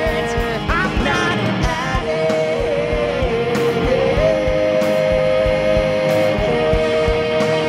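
Live rock band playing: electric guitar and bass holding long sustained notes over a steady drum beat, with a man singing into the microphone.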